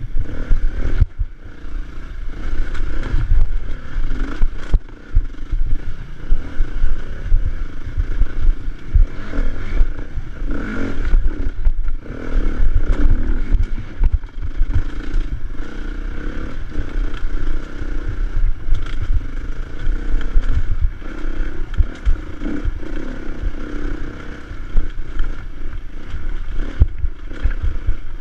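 Dirt bike engine running under load on a rough uphill trail, its revs rising and falling, with irregular low thumps and rattles from the bike and camera jolting over the ground.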